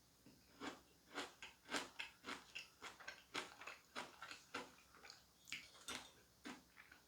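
Close-miked chewing of cake: a quiet, irregular run of short, wet mouth clicks, about three a second, that stops shortly before the end.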